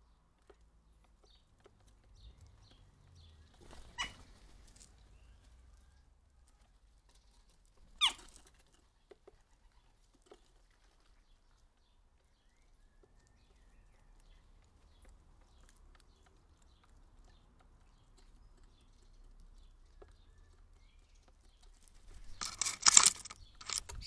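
Crows and jackdaws at a wooden bird table, quiet apart from faint ticks and two short sharp knocks. Near the end comes a loud, rapid flurry of wingbeats as a large crow flaps in to land on the table.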